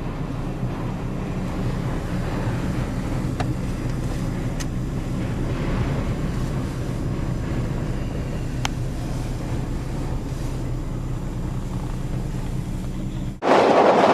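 Vehicle engine running with a steady low hum while strong wind buffets the car, heard from inside the cabin. Near the end it cuts off abruptly and a much louder rushing noise takes over.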